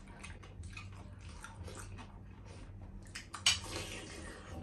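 Close-up chewing and crunching of crispy fried food, a run of irregular crackles with one louder crunch about three and a half seconds in.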